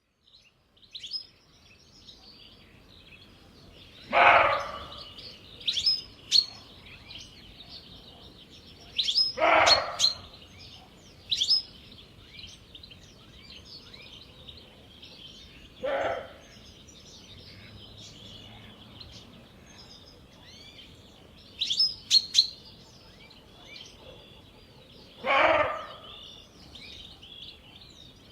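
A roe deer buck giving single hoarse, dog-like barks, four times several seconds apart: the alarm call of a disturbed roe deer. Small birds chirp and twitter throughout, with a few loud sharp chirps between the barks.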